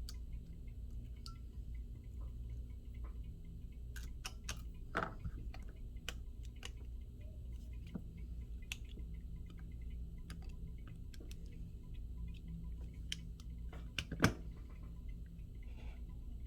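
Light, irregular clicks and taps of small tools and phone parts being handled on a workbench, with a louder click about five seconds in and another near the end, over a steady low hum.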